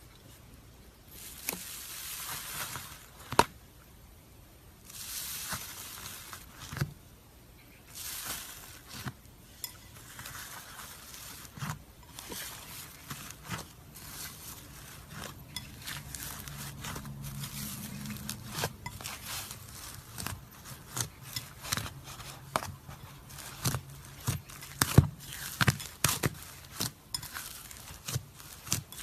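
Slime being handled by hand: soft rustling squishes at first, then a run of many short crackles and clicks that grows denser in the second half.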